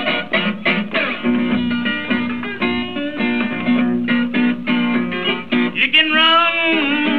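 Acoustic blues guitar from a 1930s Delta blues record, a quick run of picked notes over a repeated bass note, with notes sliding in pitch about six seconds in, in the manner of bottleneck slide playing. The sound is thin and muffled, with no treble.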